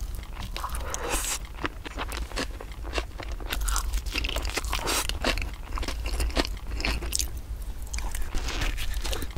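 Close-miked biting and chewing of bakery breads: a run of crisp crunches as the crusts break, with softer chewing between them, over a steady low hum.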